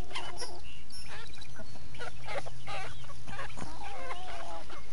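Chickens clucking in short calls while feeding on black soldier fly larvae, with a longer wavering call about four seconds in.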